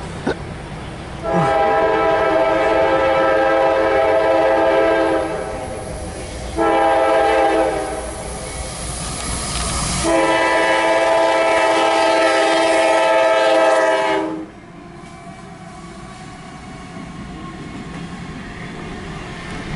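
Diesel freight locomotive's multi-note air horn sounding for a grade crossing: a long blast, a short one, then another long one. After the horn stops, the locomotive rumbles past.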